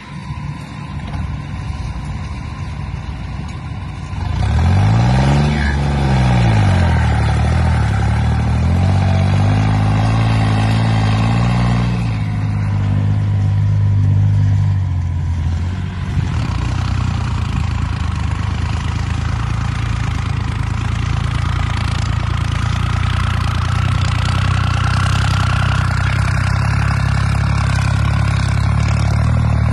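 New Holland tractor's diesel engine pulling a heavily loaded trolley. About five seconds in it revs up sharply and drops back, then runs steadily under load.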